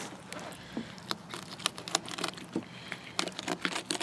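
Fillet knife cutting into a sauger behind the gill plate on a plastic cutting board, working down toward the backbone: a run of small irregular clicks and scrapes.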